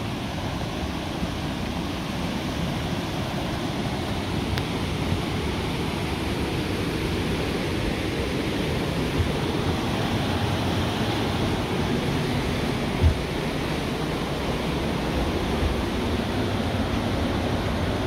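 Steady rush of a rocky mountain stream tumbling over cascades, with one brief knock a little past the middle.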